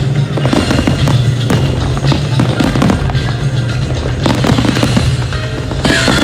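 Fireworks and firecrackers going off in a dense, irregular string of cracks and bangs, over music with a steady low drone. A whistling tone dips and rises near the end.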